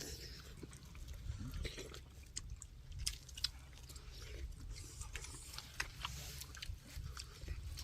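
People chewing food during a meal, with scattered small clicks and knocks.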